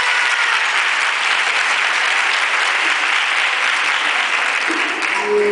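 Theatre audience applauding steadily. Music with a Latin beat starts up near the end.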